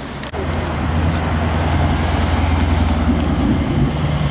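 Ford Mustang GT's V8 running at low revs as the car rolls slowly, a steady deep engine note that starts abruptly just after the start and steps up in pitch near the end.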